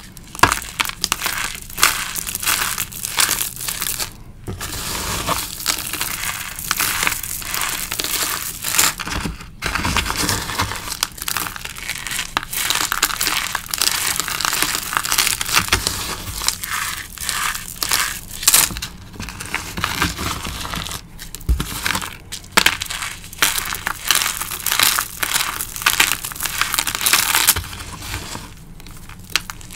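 Bare hands crushing and rubbing crumbly dried cornstarch and chalk pieces mixed with dried leaf bits. The crunching and crackling is dense and continuous, with a few brief pauses.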